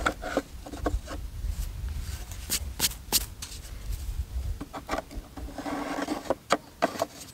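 Painted wooden birdhouse parts rubbing, scraping and clicking against each other as they are fitted together by hand. There are sharp wooden clicks, a cluster about two and a half to three seconds in and a few more near the end.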